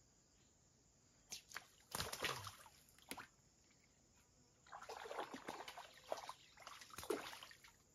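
Irregular splashing and sloshing of shallow river water as a man stands in the shallows handling a fishing line: a few sharp splashes starting just over a second in, then a longer stretch of sloshing in the second half.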